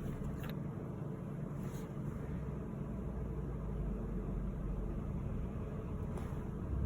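Steady low background hum with a few faint light ticks.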